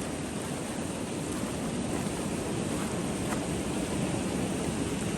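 Steady rushing of a river in flood.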